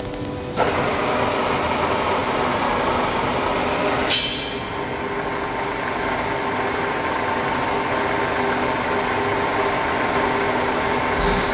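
Infratirea Oradea radial drilling machine running, a steady mechanical hum with gear whine from the spindle drive. About half a second in there is a clunk and the running sound steps up, and about four seconds in a sharp metallic clank with brief ringing.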